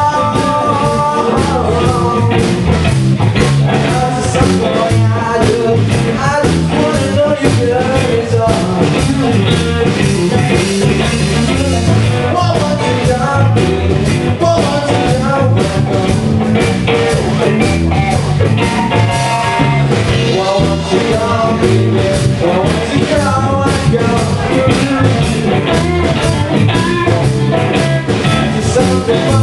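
Small live band playing rock-style music, with electric bass and a steady beat, and singing.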